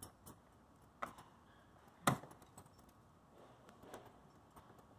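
Cutters snipping the tails off plastic zip ties that hold a mesh radiator grille in a car bumper opening: a handful of short, sharp snaps, the loudest about two seconds in.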